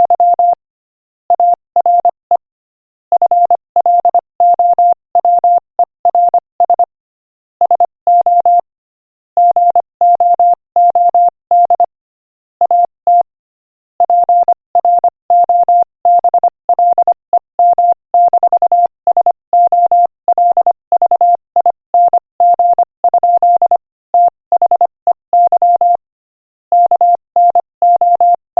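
Morse code at 25 words per minute, sent as a single steady beep tone keyed in quick dots and dashes, spelling out a joke. Short silences separate the words.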